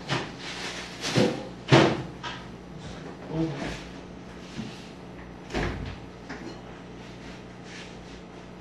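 Kitchen clatter: a handful of short knocks and clunks as things are handled and put down around a sink and counter. The loudest comes a little under two seconds in, and the knocks stop after about six seconds.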